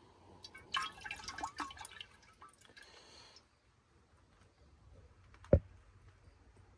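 Distilled rinse water sloshing and splashing in a large glass beaker: a run of drips and splashes lasting nearly three seconds. About five and a half seconds in comes a single sharp thump, the loudest sound.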